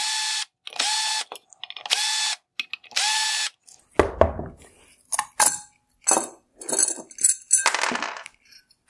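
Cordless drill/driver spinning out Phillips screws in four short even runs, one per screw holding the xenon headlight projector together. Then knocks, clicks and clinks of handling as the drill is set down and the projector's metal parts are pulled apart.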